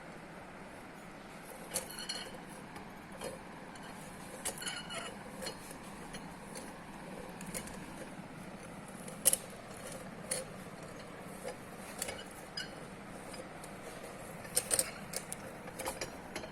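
Scattered light clinks and taps of small hard objects over a steady low hum, irregular in spacing, with the sharpest one about nine seconds in and a cluster near the end.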